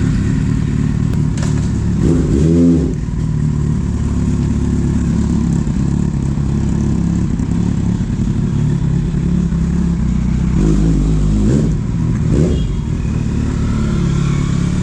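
Kawasaki Z800's inline-four engine idling just after being started. There is one short throttle blip about two seconds in and a few smaller blips later on.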